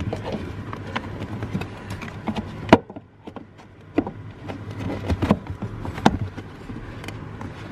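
Chevrolet Camaro's replacement accelerator pedal assembly being handled into place: scattered clicks and knocks, the loudest about three seconds in, with rustling of the footwell carpet.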